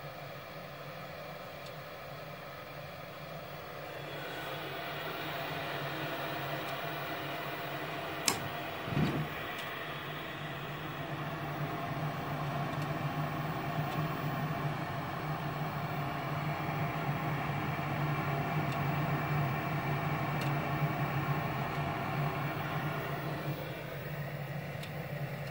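Lennox furnace running with a steady hum that grows louder about four seconds in, with one sharp click about eight seconds in and a dull thump just after.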